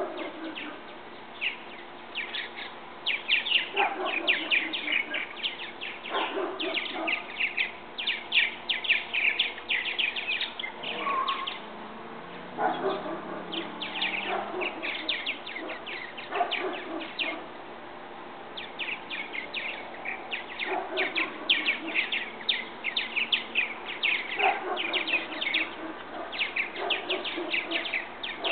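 Purple martins chirping and chattering around their birdhouse: dense runs of quick, high calls in bursts, with short lulls.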